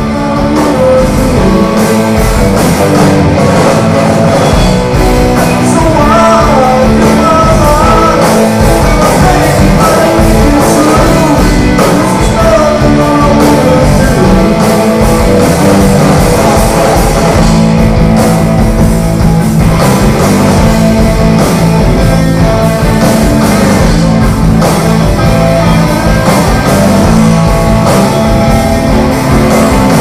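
A rock band playing live with guitars and a male lead singer, loud and dense throughout, the music swelling up over the first second.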